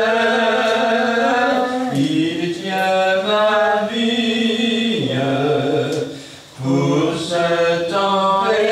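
A slow hymn sung in a low male voice range, in long held notes that step to a new pitch every second or two, with a brief break about six seconds in.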